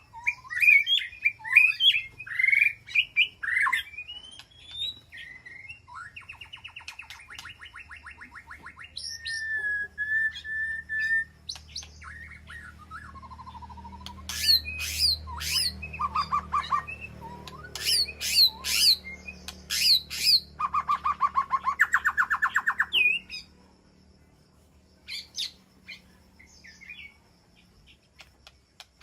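White-rumped shama singing a varied, rich song of whistled phrases and glides, rapid buzzy trills and sharp upswept notes, with one held whistle partway through. A low steady hum runs beneath the song through the middle, and the calls thin to scattered chirps near the end.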